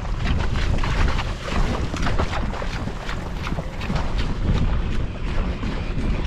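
Wind buffeting the microphone in a heavy, uneven rumble, with quick irregular clicks and rustles over it.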